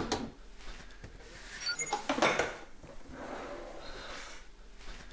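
Rice cooker being opened with a sharp click, then its inner pot clattering as it is lifted out and set down on a counter about two seconds in.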